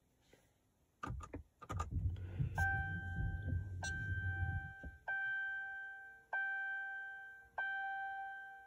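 A few clicks and a low rumble as the 2019 Dodge Charger Hellcat's ignition is switched on without starting the engine. Then the dashboard warning chime rings five times, about one and a quarter seconds apart, each ding fading out.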